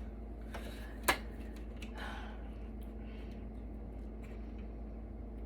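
A sharp click about a second in, with a few softer clicks and a brief rustle, from wires and connectors being worked loose inside a server chassis, over a steady low hum.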